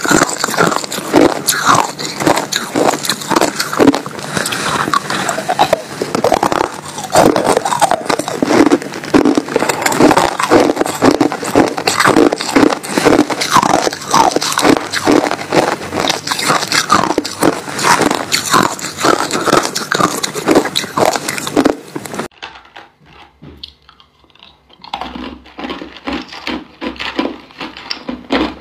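Close-up crunching of hard frozen crushed ice being bitten and chewed, a dense run of sharp cracks and crunches. Near the end it drops suddenly to quieter, sparser crunching and rubbing of ice.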